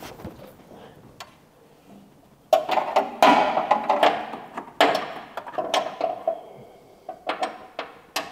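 Metal hand tools clinking against metal: a run of sharp clinks with a short ringing note, the loudest about two and a half to three seconds in, then several more spaced out to the end.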